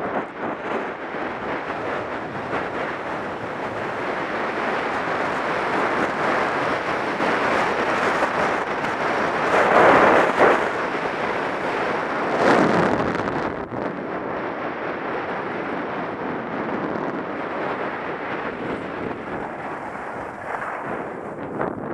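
Wind rushing across the microphone of a camera worn while skiing downhill, over the sound of sliding on packed snow. It swells loudest about ten seconds in and again briefly about two and a half seconds later.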